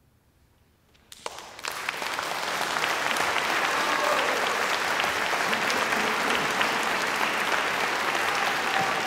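Audience applause, dense handclapping that starts suddenly about a second in out of near silence, swells over the next couple of seconds, then holds steady.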